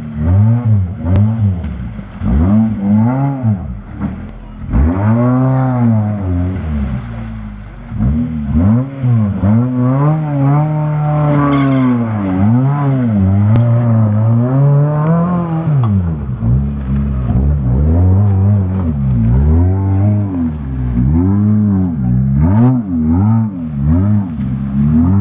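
Suzuki Gypsy 4x4's engine revving up and down over and over, its pitch climbing and falling every second or two as the throttle is worked, with a couple of brief drops near idle.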